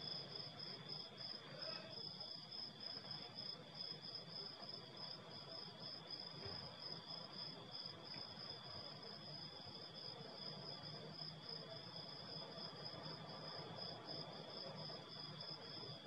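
Crickets chirping steadily, at least two at different pitches, the higher one in a fast, even pulsing rhythm.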